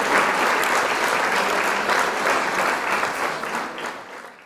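Applause from many hands clapping, fading out over the last second.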